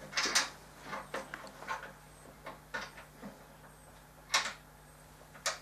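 Scattered knocks and clicks of hands handling a SkyWatcher collapsible Dobsonian telescope tube while re-tightening the lock knobs on its extended truss poles. The loudest knock comes near the start, with another a little past four seconds in.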